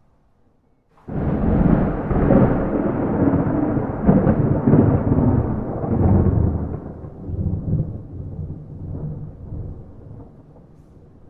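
Thunder without rain: a sudden crack about a second in, then a long low rolling rumble that slowly fades away.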